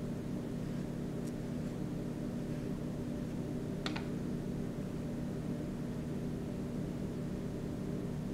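Steady low hum, with a couple of faint ticks near the start and one sharper click about four seconds in.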